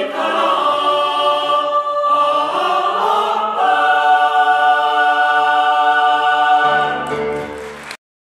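Choral music: voices singing long held chords that change every second or two, cutting off suddenly near the end.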